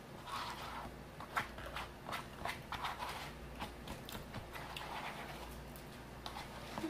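A person eating a KFC Famous Bowl of mashed potatoes, corn, gravy and fried chicken close to the microphone: wet chewing and smacking with an irregular run of sharp clicks.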